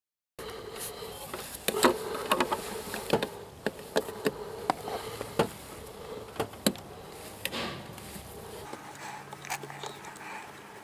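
Sharp, irregular clicks and knocks of a hand working at the heater core pipes and plastic hose fittings in a car's engine bay, with a steady buzz underneath that fades out partway through.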